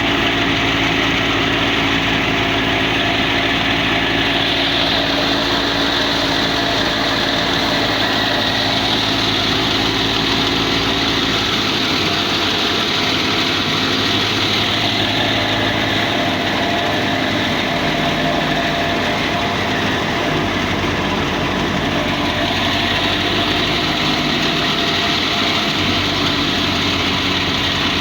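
Engine-driven wheat thresher running steadily under load, a constant engine drone with a rushing hiss over it that swells and fades a few times.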